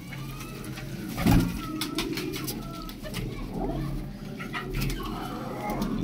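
Domestic pigeons cooing, a low rolling murmur, with several short sharp wing flaps and clatters, the loudest about a second in, as a bird is caught and handled.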